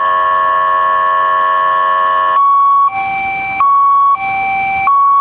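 Electronic alarm siren sounding. It holds one steady, many-toned blare for about two and a half seconds, then switches to a two-tone hi-lo pattern, swapping pitch about every 0.7 seconds.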